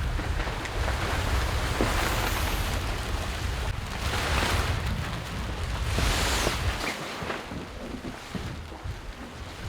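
Wind buffeting the microphone and sea water rushing past a racing sailboat, with two louder surges of wash around four and six seconds in. The heavy wind rumble drops away about seven seconds in.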